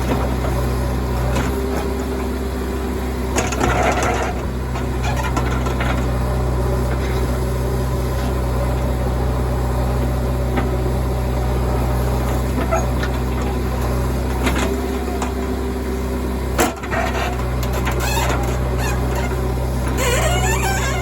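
Heavy diesel engine running steadily, with scattered clatter from about four seconds in, a sharp knock near the end and scraping at the very end.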